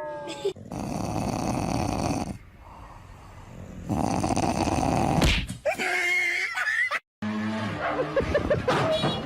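A dog snoring: two long noisy breaths a few seconds apart, followed by a short pitched call, then a cut to a different clip with more animal noise.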